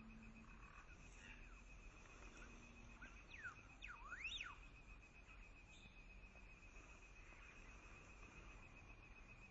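Faint outdoor ambience: a steady, high, finely pulsing insect trill runs throughout. About three to four seconds in, a bird gives a few quick whistled notes that sweep up and down.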